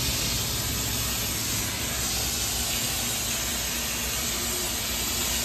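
Car-wash foam tank's spray nozzle blasting a steady jet, a constant hiss of the air-driven spray.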